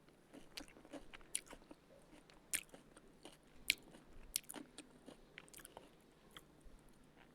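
Someone biting into and chewing a crisp fried potato cutlet, with irregular sharp crunches.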